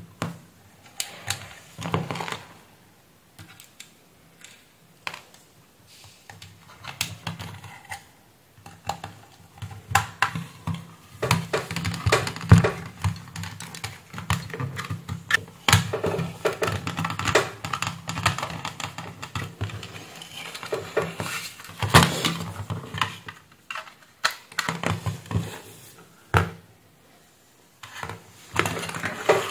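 Irregular clicks, taps and light scraping as a small screwdriver drives screws into a satellite receiver's thin metal case and the case is handled on the workbench.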